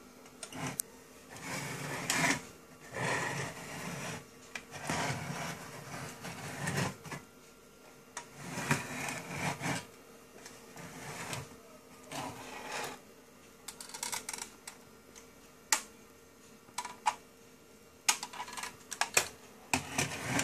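Small battery-powered motor and gear mechanism of a 1960s tin-and-plastic McGregor toy running in spells of a second or two, with a mechanical whirr and rattle. Scattered sharp clicks follow near the end.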